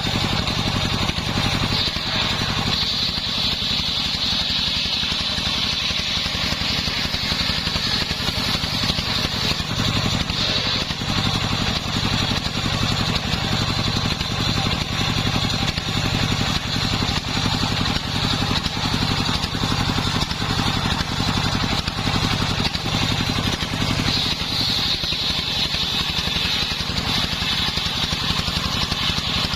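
Homemade engine-driven circular saw running continuously while sawing sengon wood: a steady, pulsing engine drone underneath a high sawing whine that grows louder at times as the blade works through the log.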